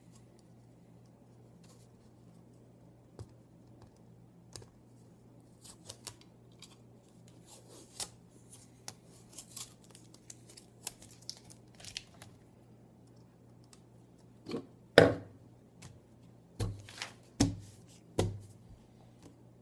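Black tape being peeled off a plastic pipe tube, crackling and tearing in short bits. Near the end come a few louder knocks as the tube is handled.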